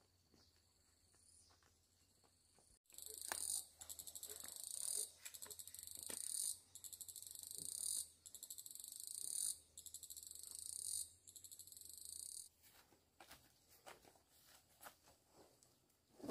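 Insect calling: a high buzzing trill in six phrases of about a second and a half each, each swelling louder and then cutting off, starting about three seconds in and stopping near the end. Faint taps and knocks lie beneath it.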